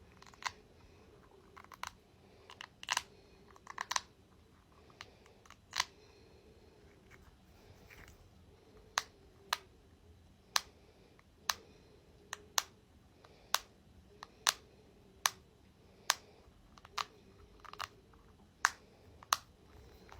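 A ball being handled close to the microphone, giving sharp clicks and taps, scattered at first and then coming about once a second.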